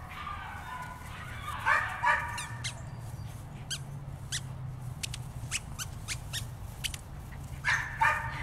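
A young puppy gives short, high whines or yips, once about two seconds in and again near the end, with a run of light sharp clicks in between.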